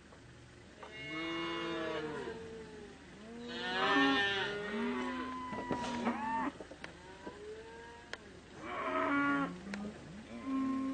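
Cattle mooing: several long moos in a row, some overlapping one another.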